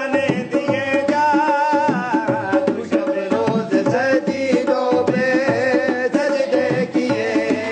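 Dhol, a two-headed barrel drum, played by hand in a steady folk rhythm, with a man singing over it in long wavering notes.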